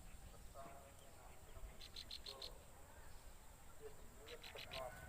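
Faint chirping of small birds: two short, rapid runs of high, evenly spaced chirps, around two seconds in and again near the end, among scattered lower calls.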